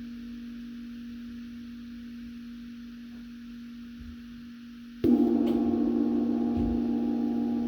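Large 22-inch K. Zildjian Constantinople orchestral cymbal ringing on with a low, slowly fading tone, then struck again about five seconds in, opening into a louder, sustained wash of shimmering overtones.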